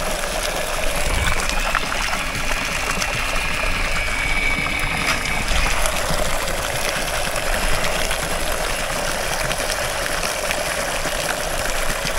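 Milwaukee cordless stick transfer pump running, throwing a steady jet of water that splashes and trickles onto the water below. A thin motor whine sits under the splashing for the first few seconds.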